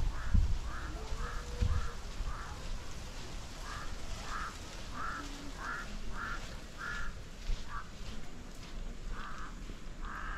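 A bird calling over and over in a series of short calls, about two a second, pausing briefly twice. A few low thumps come in the first two seconds.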